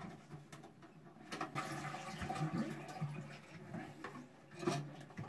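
Water rushing out of a Kale concealed toilet cistern as its flush valve is worked by hand, starting about a second in and fading out after a couple of seconds, with small clicks and a knock of plastic parts.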